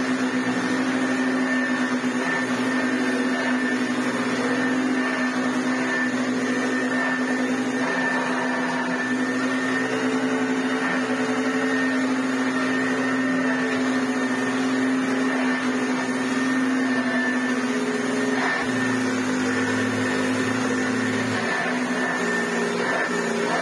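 1980s Hoover Junior U1104 flat-belt upright vacuum cleaner running steadily, with a constant high whine over the motor's drone; it is working well.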